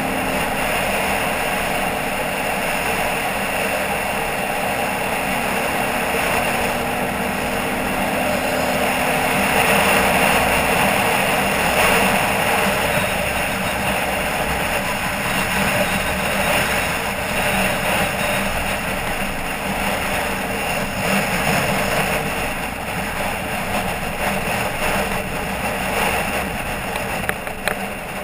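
Dual-sport motorcycle engine running steadily while riding a dirt road, mixed with a steady rushing noise, a little louder around ten seconds in.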